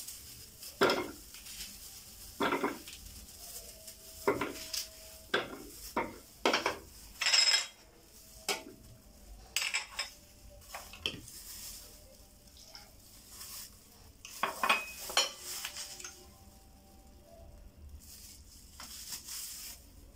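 Irregular knocks and clinks of kitchenware being handled: a knife, a plastic chopper bowl and glass bowls on a counter while a red onion is cut and dropped into the chopper. A couple of the clinks ring briefly.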